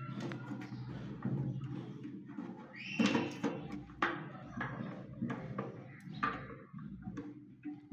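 Irregular clicks and knocks of plastic toilet cistern fittings being handled and fitted, with a steady low hum beneath.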